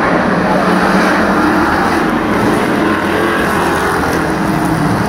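Engines of a pack of street stock race cars running at speed around the oval track, heard as a loud, steady drone.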